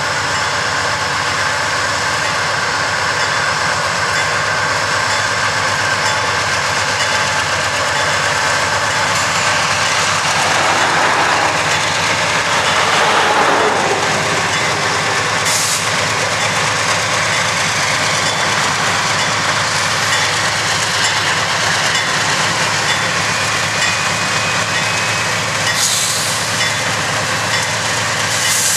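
GE Dash 8 and Dash 9 freight diesel locomotives working hard in a steady drone, notched up to accelerate a heavy mixed freight. The sound swells for a few seconds about halfway through.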